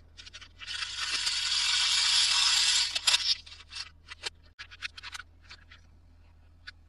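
Toy packaging being opened by hand: one long rasping tear or scrape lasting about two and a half seconds, then a scatter of light clicks and crinkles as the package is handled.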